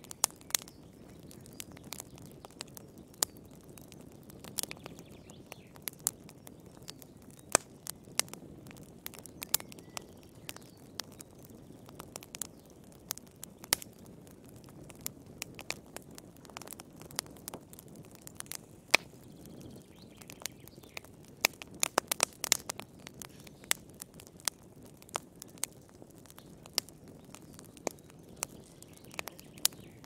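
Wood fire crackling in a fireplace: irregular sharp pops and snaps over a low steady rush, with a quick cluster of pops about three-quarters of the way through.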